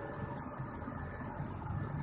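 A steady low rumble with a faint, thin high tone above it, an unexplained sound that the recordist cannot identify.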